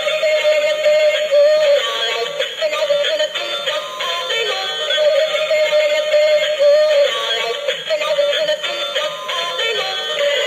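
Battery-operated toy peacock playing its built-in electronic song, a synthesized singing voice over a simple tune that seems to come round again every few seconds.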